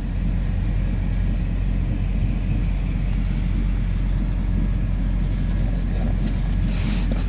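A semi truck's diesel engine idling, a steady low rumble, with a rush of hiss joining from about five seconds in.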